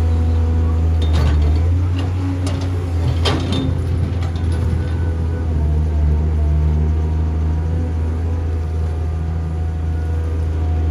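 Diesel engines of an excavator and dump truck running steadily with a deep hum, with a few short clanks, the loudest about three seconds in.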